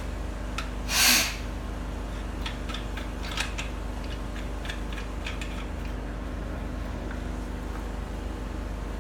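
A short, loud scrape of friction about a second in, followed by a scatter of light clicks and taps, over a steady low hum.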